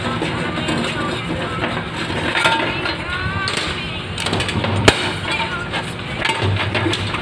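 Metal clinking and knocking as parts of a rusted electric stove are handled and the sheet-metal housing is moved, with one sharp knock about five seconds in. Voices in the background.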